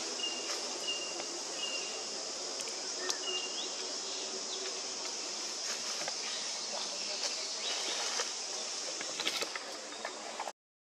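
Steady high-pitched insect drone with four short high chirps in the first few seconds and scattered light clicks and rustles; the sound cuts out completely for a moment near the end.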